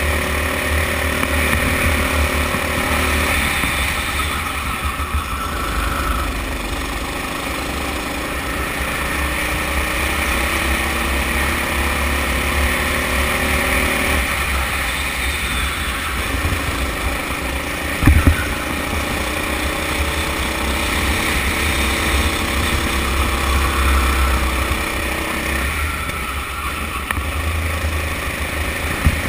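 Kart engine heard from the driver's seat, rising in pitch as it accelerates and dropping back as it eases off, three times over, with wind buffeting the microphone. A single sharp knock comes about two-thirds of the way through.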